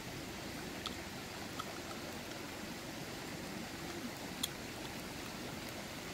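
Chicken curry simmering in a wide pan over a wood fire: a steady bubbling hiss, with a few short sharp clicks.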